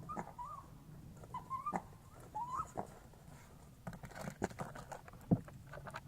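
An animal's short, high, wavering whine-like calls, four in the first three seconds, followed by scattered clicks and rustling with one sharp knock about five seconds in.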